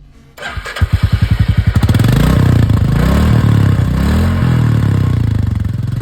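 Royal Enfield Classic 350's single-cylinder J-series engine starting about half a second in, thumping unevenly for a moment as it catches, then revved up and down several times through its exhaust.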